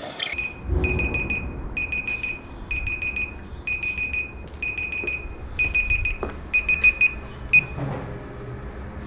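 Electronic timer alarm beeping: clusters of rapid high beeps about once a second, about eight times, cut short about seven and a half seconds in.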